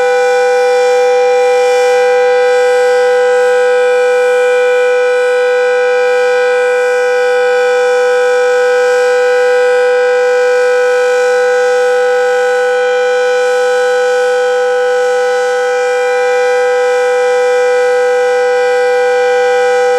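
Red Arrow 12 warning siren sounding a loud, steady tone made of several pitches at once, held at one pitch with no rise or fall.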